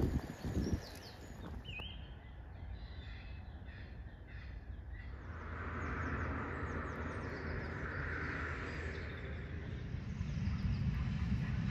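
Countryside ambience with wind and birds calling a few times in the first half. Near the end a low rumble builds as a steam train approaches.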